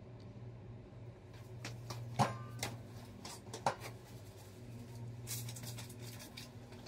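Steady low room hum, with a few short sharp clicks and rustles about two, two and a half and three and a half seconds in, and again near the end.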